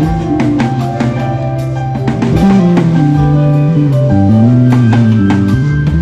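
Live band music: a bass guitar plays a moving line low down under a drum kit's steady beat, with held chords above.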